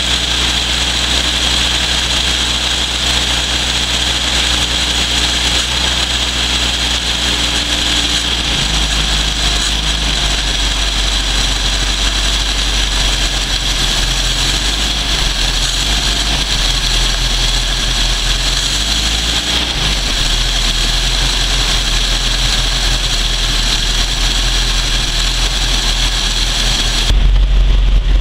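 1979 Toyota pickup's 20R 2.2-litre four-cylinder engine idling steadily, heard close at its carburetor. About eight seconds in the running note changes, and about a second before the end it turns louder and deeper.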